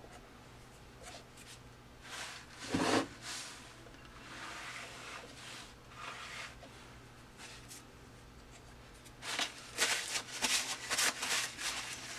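Hands picking and rubbing stringy hot-glue residue off a plastic figurine. This makes scattered scraping rustles, with a run of quick scrapes near the end.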